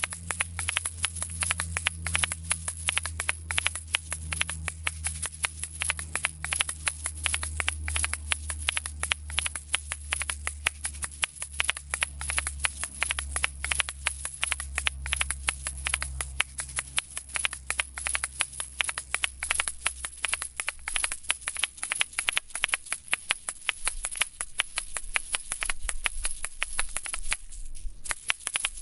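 Asalato (kashaka) played fast: paired seed-filled shells on cords, clacking together and rattling in a quick, steady rhythm, with a brief break just before the end. A low steady hum lies underneath and fades out after about twenty seconds.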